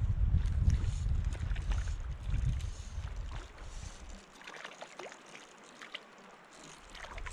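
Wind buffeting the microphone in an irregular low rumble, dropping away about four seconds in and picking up again near the end, with scattered light ticks and small water splashes over it.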